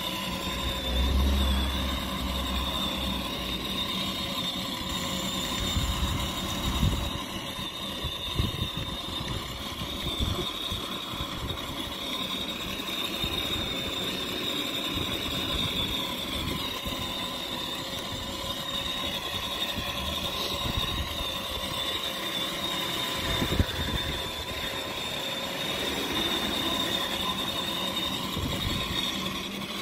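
Battery-powered ride-on toy car, a Nissan GT-R replica, driving along: its electric drive motors and gearboxes give a steady whine, while its wheels rumble over the asphalt with a few brief knocks.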